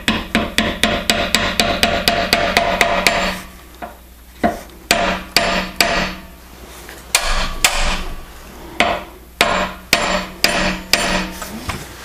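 Hammer blows on a hand-held cold chisel cutting a bronze vise soft jaw, each strike ringing. A quick run of about five light blows a second for the first three seconds, then short groups of blows with pauses between them.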